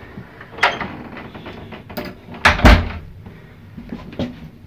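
A door being opened and shut: a click of the latch, then a loud thump about two and a half seconds in, and lighter clicks near the end.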